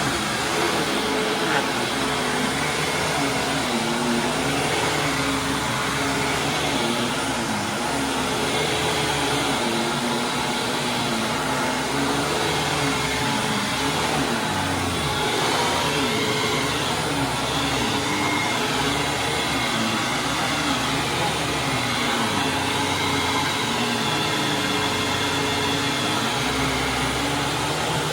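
Hoover WindTunnel Supreme upright vacuum running steadily over carpet. Its motor tone sways gently up and down every second or two.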